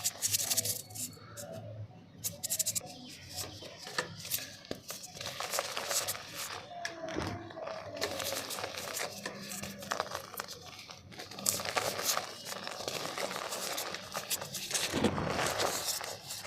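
Dry, dusty black mud crumbling and crunching in a clay pot: a dense run of irregular crackles and gritty crunches.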